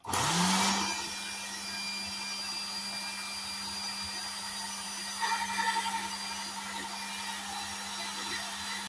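Electric meat grinder switched on, its motor spinning up quickly to a steady hum, pushing grated-potato filling through a sausage-stuffing tube to fill casings.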